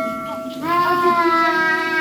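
A child's voice singing one long held note, starting about half a second in, as a ringing metallic tone fades out.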